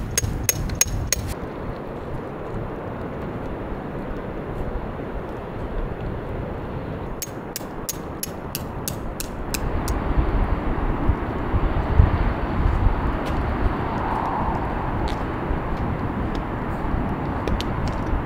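Steady rain falling, with a quick run of sharp taps about seven seconds in and a low rumble swelling a few seconds later.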